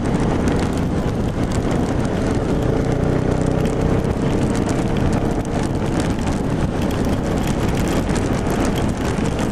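Motorcycle riding at highway speed in the rain: heavy wind rush over the helmet-mounted camera's microphone with the engine's steady drone underneath, and many small ticks from raindrops hitting.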